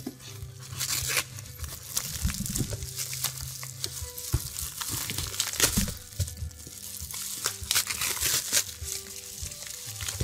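Packaging being torn open by hand: irregular crinkling, rustling and tearing of a cardboard box's flaps and packing tape and a yellow padded mailer. Quiet background music runs underneath.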